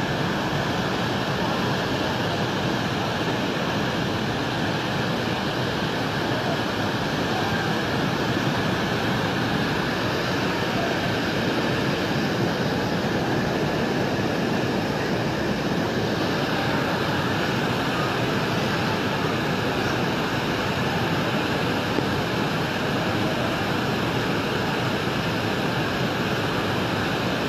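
Muddy flash-flood river water rushing steadily at full spate.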